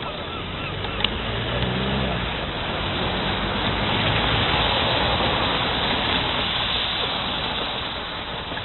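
A road vehicle passing by, its engine and tyre noise swelling to a peak midway and fading away. A single sharp knock sounds about a second in.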